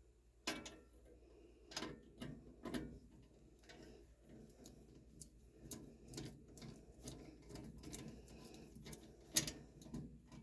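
Scattered light clicks and taps of a hand tool and metal parts as a gas furnace's flame sensor is fitted back and its mounting screw tightened. The clicks are irregular, with a few sharper ones among many faint ticks.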